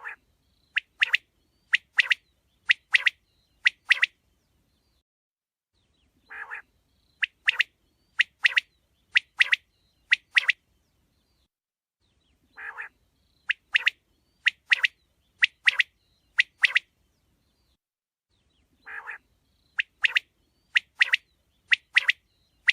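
Quail calling: a short, rough, lower note followed by a quick run of sharp, high chirps, the phrase repeated four times about every six seconds.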